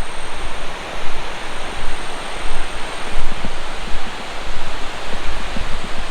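Rushing water of a waterfall, a steady loud hiss, with wind buffeting the microphone in uneven low rumbles.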